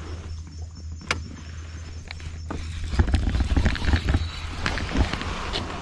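Gear on a kayak being handled right at the microphone: a sharp click about a second in, then from about three seconds a run of close knocks and rustles, over a steady low rumble.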